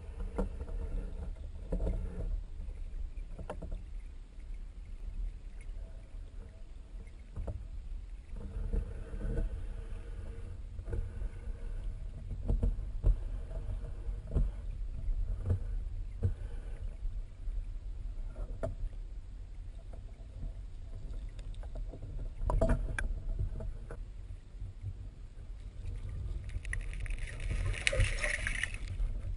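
Flowing river water heard through an underwater camera: a steady low rumble with scattered knocks, and a brief louder, hissy rush near the end.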